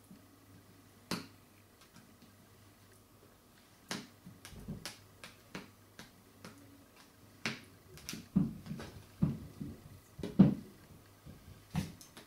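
Scattered clicks and taps of a plastic installation card and fingertips on a smartphone's screen and edges as bubbles are pushed out from under a freshly applied Zagg Invisible Shield film. A few dull knocks on the wooden desk come late, the loudest about ten seconds in.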